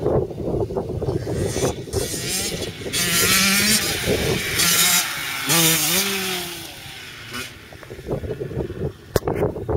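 Dirt bike engines, a Yamaha YZ85 two-stroke and a Honda CRF230 four-stroke single, riding across grass. The engine note climbs, drops and climbs again through the middle as a bike revs up, then fades. There is one sharp knock about nine seconds in.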